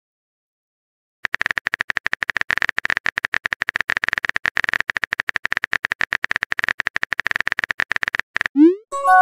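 Texting-app sound effect: a long run of rapid keyboard-typing clicks. Near the end comes a short rising swoosh and a brief pitched chime as the message pops up.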